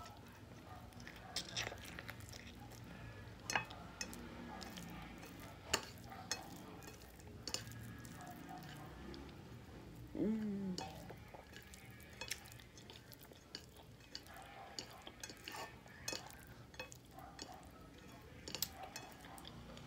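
Close-up eating sounds: chewing with scattered sharp clicks and lip smacks as food is eaten by hand from a plate. A short falling hum about ten seconds in.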